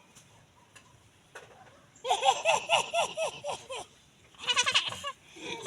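A goat bleating: a long quavering bleat starting about two seconds in, then a shorter one near the end.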